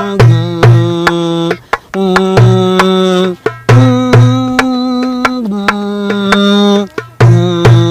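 Music: a ringtone-style remix with a melody of long held notes, each lasting a second or two with brief breaks between phrases, over a percussion beat of sharp clicks and a low kick drum.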